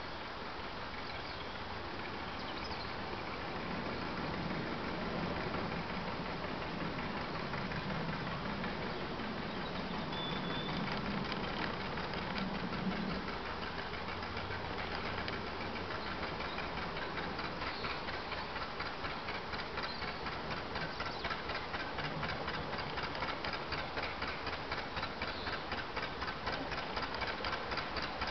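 Slow-running Kelvin petrol/paraffin narrowboat engine with a water-cooled exhaust, a steady rapid beat growing louder as the boat draws near.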